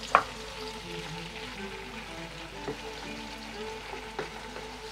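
Chopped tomatoes and green garlic sizzling in oil and a little water in a wok, with a spatula stirring and knocking against the pan, loudest just after the start and twice more later.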